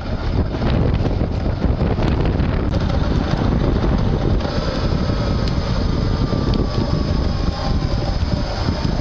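Electric-assist bicycle riding with heavy wind rumble on the microphone. About four and a half seconds in, the front hub motor's whine comes in and slowly falls in pitch.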